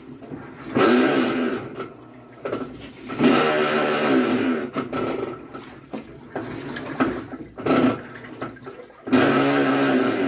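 Electrolux LT15F top-load washing machine agitating: the motor and agitator run in alternating strokes, each surging and falling in pitch about every two seconds, with water churning and a creaking, scraping noise. The technician traces this creak to a loose wash basket.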